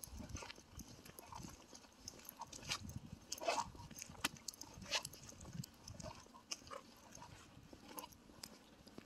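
Faint footsteps on an asphalt road at a walking pace, soft knocks about one every two-thirds of a second, with light ticks mixed in.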